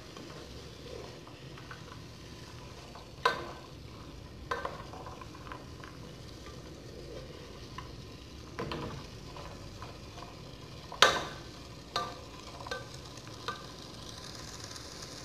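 Chopped vegetables sautéing in rendered bacon and calabresa sausage fat in a metal pot, with a steady sizzle, while a plastic spoon stirs them, scraping through the vegetables and knocking against the pot several times, the loudest knock about eleven seconds in.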